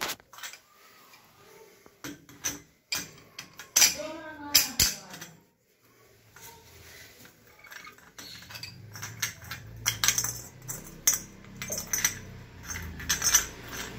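Metal clinks and knocks of a pipe wrench on a chrome wall-mixer leg as the leg is screwed into its wall fitting, irregular and loudest a few seconds in.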